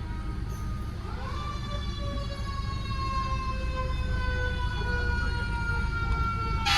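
Fire engine siren winding up in pitch about a second in, then falling slowly and steadily, over a low engine and traffic rumble. A short hiss comes at the very end.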